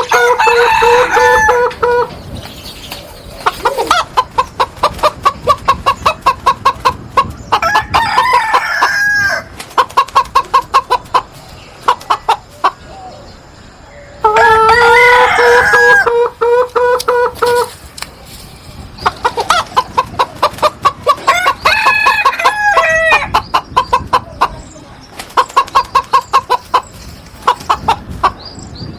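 Chicken sound effects: a rooster crowing, followed by long runs of rapid, repeated clucking. The same crow-then-cluck sequence plays twice, with the second crow about fourteen seconds in.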